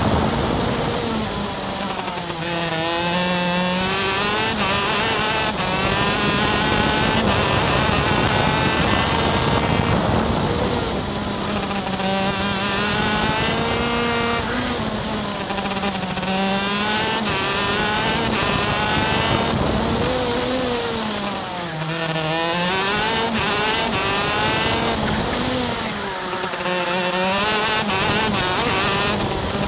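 Racing go-kart's two-stroke engine at high revs. Its pitch drops sharply several times as the kart slows for corners, then climbs again as it accelerates out.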